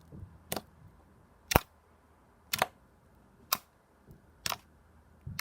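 Golden holographic slime being squeezed and pressed, giving sharp clicks about once a second.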